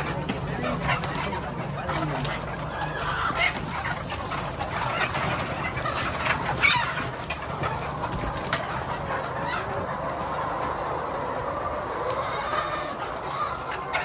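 A large flock of white laying hens clucking and calling all at once, a dense, continuous chorus of overlapping short calls, with scattered sharp clicks and knocks.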